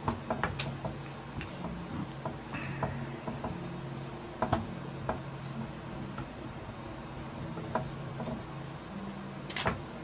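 Small hand screwdriver turning screws into a graphics card, with scattered light metal clicks and ticks as the screws are brought hand-tight to mount the cooler, and a louder brief scrape near the end.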